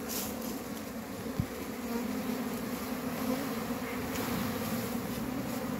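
A mass of honeybees buzzing at the entrance of a wooden hive box as the rescued colony moves into it, a steady low hum. A brief thump comes about a second and a half in.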